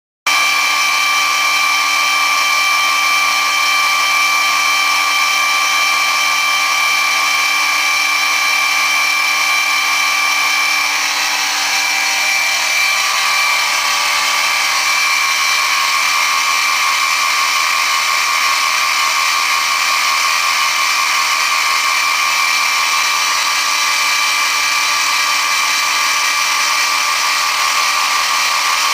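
Sieg X2 CNC mini mill running and cutting aluminium: a steady, high machine whine with a hiss of cutting over it, starting suddenly right at the start. The whine shifts slightly in pitch about twelve seconds in, as the cut changes.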